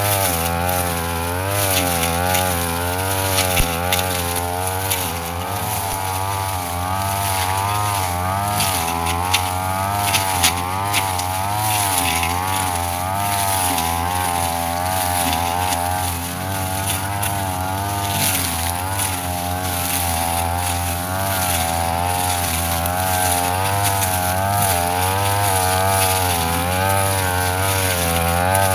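Brush cutter engine running at high speed throughout, its pitch wavering up and down as the blade cuts grass and weeds, with scattered short ticks.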